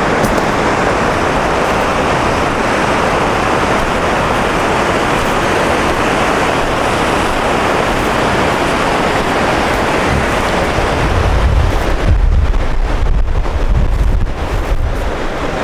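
Whitewater rapids running high, a steady loud rush of water over rocks. From about eleven seconds in, wind buffets the microphone for a few seconds, adding a low rumble.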